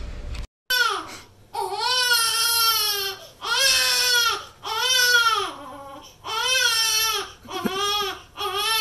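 A baby crying: a series of about six wails, each about a second long, rising and falling in pitch.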